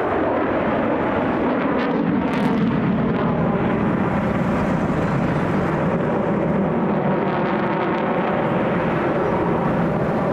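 Loud, steady jet noise from an F-22 Raptor's twin Pratt & Whitney F119 turbofan engines as the fighter maneuvers in flight.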